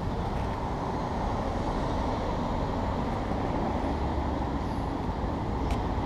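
Steady rumble of street traffic noise, with a single short click near the end.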